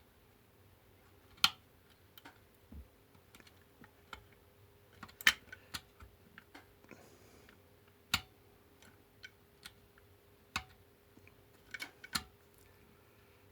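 Irregular sharp clicks and light taps of hand tools and small metal parts while the throttle linkage is fitted to a Husqvarna 2100CD chainsaw, about a dozen at uneven intervals.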